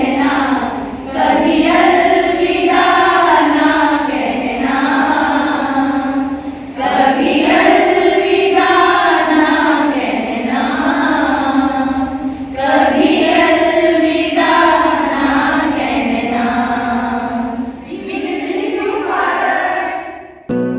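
A group of women singing together without accompaniment, in long held phrases, the singing stopping just before the end.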